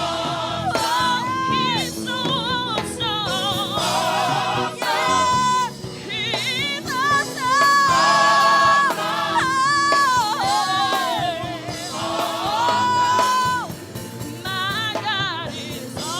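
Gospel singing over instrumental accompaniment: a lead voice holding long notes with vibrato between fast melismatic runs.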